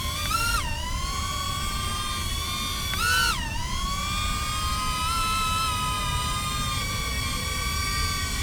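DJI Neo mini drone's propellers whining at a steady high pitch, over a low rumble. The pitch jumps up and drops back twice, once near the start and once about three seconds in, as the motors spool up briefly.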